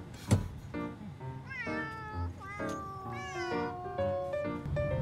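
A cat meowing twice, each call rising and then falling in pitch, over background music. A short, sharp knock just after the start is the loudest sound.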